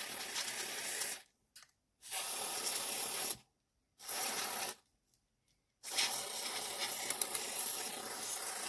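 Aerosol cleaner sprayed through a thin extension straw onto a model locomotive's plastic chassis, hissing in four blasts. The first stops about a second in, a second and a shorter third follow in the middle, and a longer fourth starts about two-thirds through.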